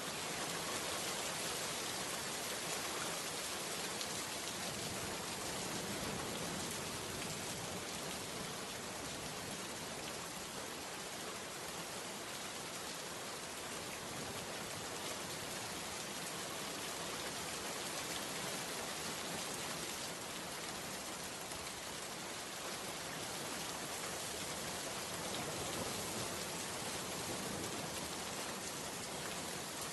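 Steady, even rain with no break or change.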